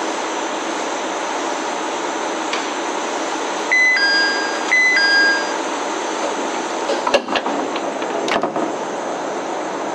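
A Joso Line diesel railcar runs steadily at the platform while its door-closing chime, a falling two-note tone, sounds twice about a second apart. A few sharp knocks follow as the doors shut.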